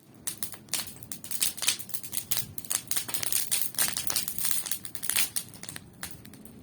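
Bonfire of old junk crackling, with dense irregular pops and snaps that thin out after about five and a half seconds.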